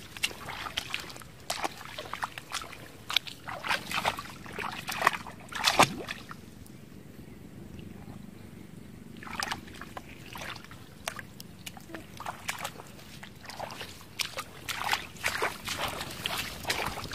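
Splashing in shallow muddy water: a busy run of short splashes and slaps that drops to a quieter stretch about six seconds in, then picks up again about three seconds later.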